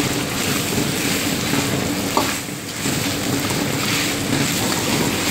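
Lamb and sliced onions sizzling over a high flame in an iron wok as they are stirred with a ladle. There is a short knock of the ladle about two seconds in, and the sizzle dips briefly just after.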